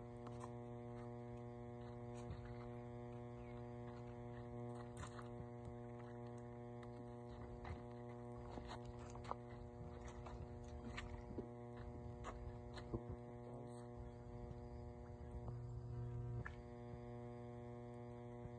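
A steady low hum with several even overtones, swelling briefly about three-quarters of the way through, with faint scattered clicks over it.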